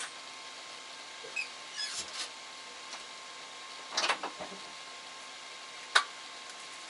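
Light clicks, knocks and clatters of kitchen items being handled, a few scattered over the seconds with a cluster about four seconds in and one sharp click near the end, over a steady faint hum.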